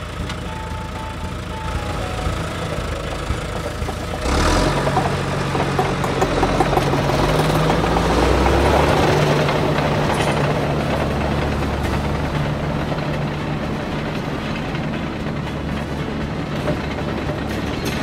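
Heavy truck engine running steadily, a dubbed sound effect, with a sharp change and a rise in level about four seconds in.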